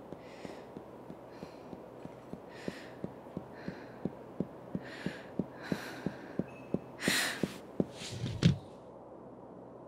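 Sound-effects track of an animated film: a regular ticking, about three ticks a second, growing louder, with breathy hissing swells over it. It ends in a loud swell and then a loud thump near the end, after which it goes quiet.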